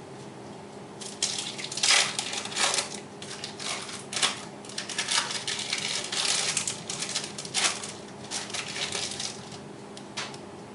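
Plastic wrapper of a cheese slice being peeled open and handled, giving an irregular run of crinkling and crackling for several seconds, over a faint steady hum.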